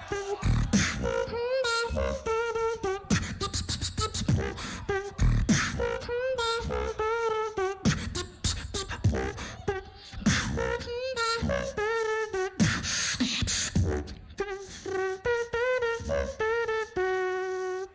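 Live solo beatbox routine: fast vocal-percussion kicks, snares and clicks layered at the same time with a hummed, wavering bass-and-melody line, closing on a held steady note.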